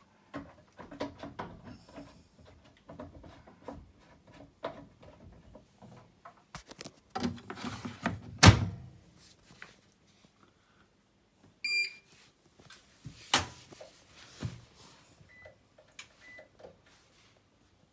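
A washing machine's door and controls being handled: a run of clicks and knocks, a loud thump about halfway through, then a short electronic beep and a sharp click.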